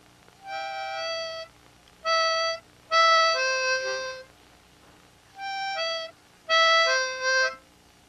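Harmonica played slowly by hand at the mouth: five short phrases of held notes and chords, with pauses between them.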